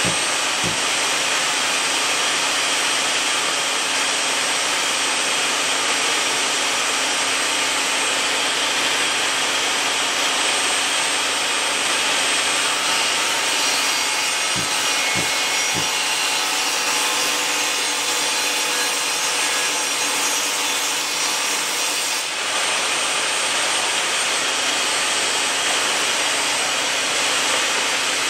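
Bosch GTS 10 XC table saw running steadily, its blade cutting through a wooden board fed by hand.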